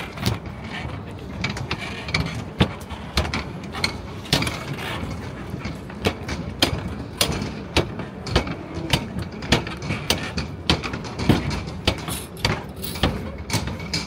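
A run of sharp clicks and knocks, irregular, about two a second, over a steady low city hum.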